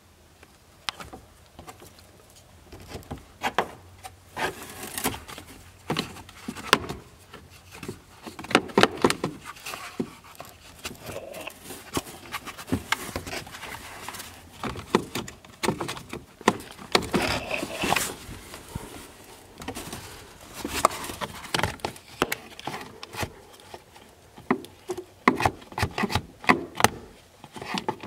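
Irregular clicks and knocks from the blend door inside a Ford Crown Victoria's HVAC heater box, the sign of a failing blend door.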